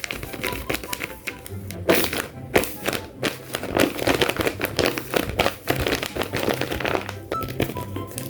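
Background music with dense crinkling and rustling of blind-bag packaging being handled and torn open.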